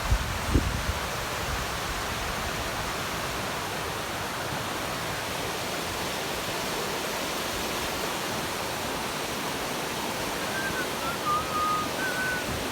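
Steady rush of flowing water, like a mountain stream or waterfall. Near the start there are a few low thumps of wind on the microphone, and from about ten seconds in a few short high chirps.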